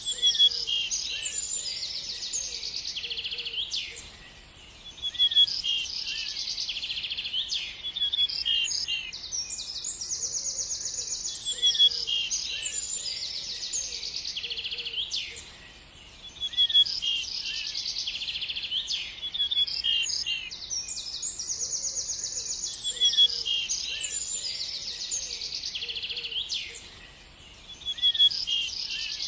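Birdsong: several small birds trilling and chirping together, with rapid repeated-note trills and quick chirps over one another. The same stretch of recording repeats about every eleven and a half seconds, each time with a brief quieter gap.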